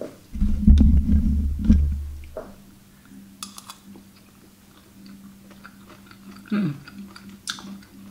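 A loud low rumble for about two seconds just after the start, as the camera is handled. Then a person chewing a mouthful of soft ketupat, tofu and peanut sauce, with faint mouth clicks over a steady low hum.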